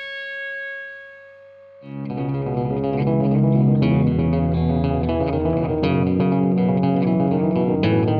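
Background rock music with distorted electric guitar and bass: a held chord fades out, then a driving riff starts about two seconds in.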